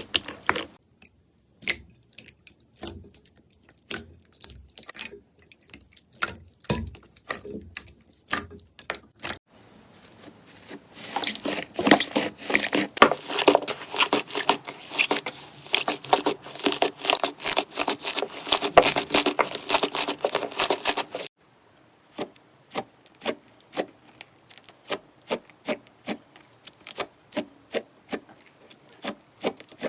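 Slime being worked by hand, giving dense runs of small clicks, pops and squishes. The texture changes abruptly about ten and about twenty-one seconds in, with the middle stretch the busiest and loudest.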